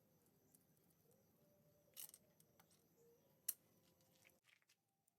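Near silence with a few faint metallic clicks and taps from small engine parts being handled, a cluster about two seconds in and one sharper click a second and a half later; the sound drops to almost nothing near the end.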